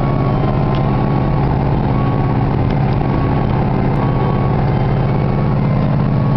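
Large vehicle engine running steadily at idle with an unchanging deep hum.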